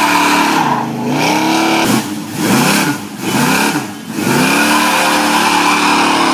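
Box Chevy engine held at high revs in a burnout, its rear tyres spinning with a steady screech. The revs drop and climb again three or four times in quick succession about a second in, then hold high once more.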